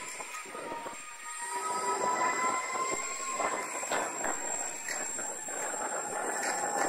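Electric skateboard rolling on a road with its motors whining: a steady whine that rises slightly in pitch and then eases back down, over rough wheel-on-road rumble with a few sharp knocks.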